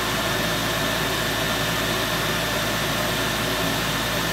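Centrifugal exhaust blower on a paint-booth filter box running steadily: a constant rush of air with a faint steady whine over it.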